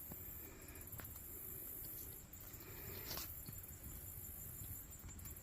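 Chorus of insects, a steady high-pitched pulsing trill that drops out briefly now and then, with a faint click about a second in and another about three seconds in.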